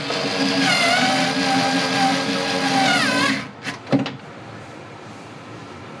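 A gas furnace's draft inducer motor running loudly with a steady hum and whine, dropping in pitch and falling away after about three and a half seconds. Two sharp clicks follow.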